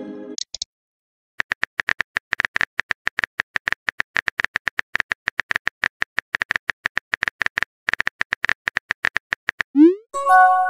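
Rapid run of short keyboard-typing clicks, a texting sound effect. Near the end a quick rising swoop and a short chime of several steady tones mark a new message popping up.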